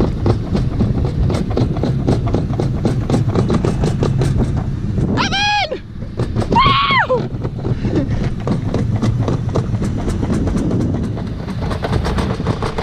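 Summer luge sled speeding down a stainless-steel trough track: a steady rumble of the wheels with rapid rattling clicks over the track. About halfway through come two short high-pitched squeals that rise and fall in pitch.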